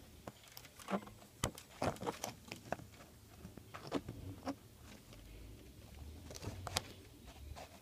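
Scattered faint clicks and taps, irregular and close to the microphone, with a soft low rumble between about five and seven seconds in.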